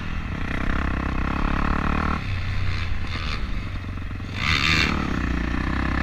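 Dirt bike engine running under throttle, heard from an onboard camera while riding over dirt, its note changing about two seconds in. A short hiss comes about four and a half seconds in.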